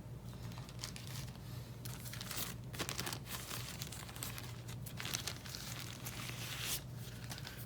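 Plastic packaging crinkling as it is handled, in several irregular bursts, over a steady low hum.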